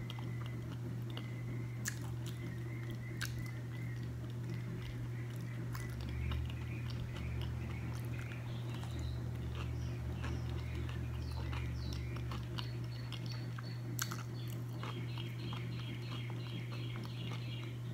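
A person chewing a bite of deep-fried avocado, with faint wet mouth clicks here and there, over a steady low hum.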